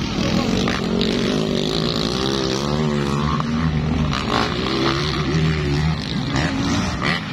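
Several motocross dirt bike engines revving hard while racing over the jumps, their pitch climbing and dropping over and over.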